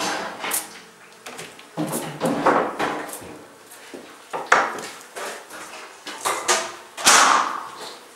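Uncapping fork scraping wax cappings off wooden honeycomb frames, with the frames knocking against a wooden uncapping tray. The scrapes and knocks come irregularly, about one every second or so, the loudest near the end.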